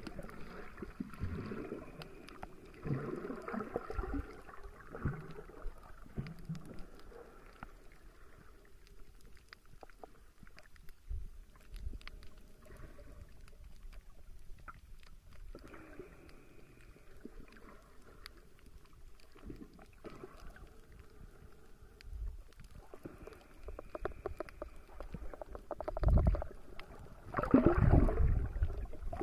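Muffled sloshing and gurgling of water heard through a phone's microphone held underwater, in irregular swells with low thumps, quieter in the middle and loudest near the end.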